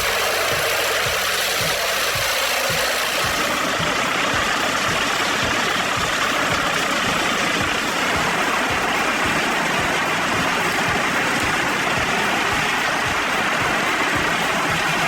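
Heavy machine engine running steadily, with regular low pulses under a broad rushing noise; the upper part of the sound shifts slightly about four seconds in.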